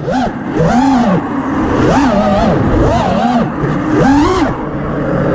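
FPV quadcopter's brushless motors whining, their pitch swooping up and down again and again with quick throttle changes.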